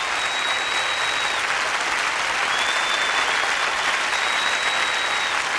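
A large concert audience applauding steadily, with a few long, high whistles rising above the clapping.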